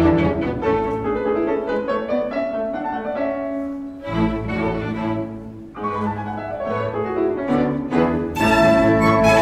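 Grand piano playing a quick classical passage with a string orchestra accompanying. Low sustained string notes come in about four seconds in, and the orchestra swells louder near the end.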